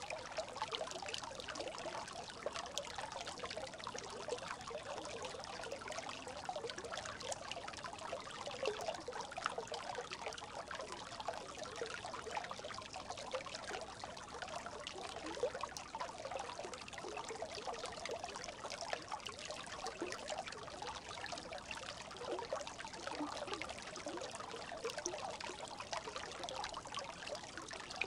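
Brook babbling: a steady run of quick gurgles and trickles that goes on without a break.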